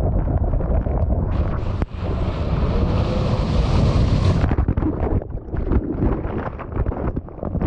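Breaking ocean wave and whitewater rushing and splashing around a bodyboarder, with wind buffeting the microphone. A loud hiss of the curling wave starts about a second and a half in and cuts off suddenly about four and a half seconds in, followed by choppy splashes.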